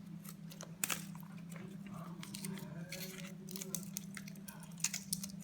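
Plastic protective wrapping being handled and pulled off a new wristwatch, with irregular crinkling and crackling, over a steady low hum.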